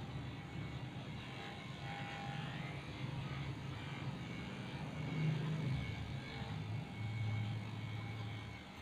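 Cordless electric dog clippers running with a steady low hum while shaving a Shih Tzu's matted coat around the head and neck. The hum deepens a little near the end.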